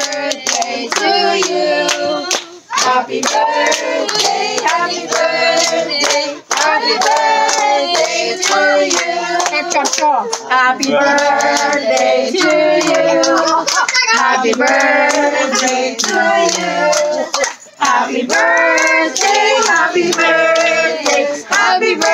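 A group of people singing together while clapping their hands in time, about two claps a second.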